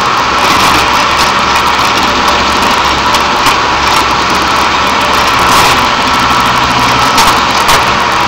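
Railroad track maintenance machine running: a steady engine hum with frequent short metallic clicks and knocks throughout.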